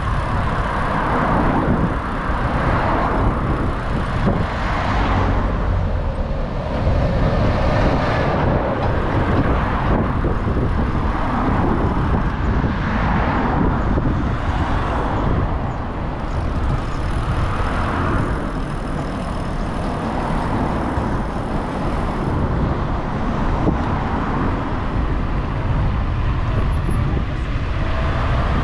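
Steady wind noise rushing over the microphone of a rider's camera moving through slow town traffic, mixed with the engine and tyre noise of the van and cars alongside, swelling and easing every couple of seconds.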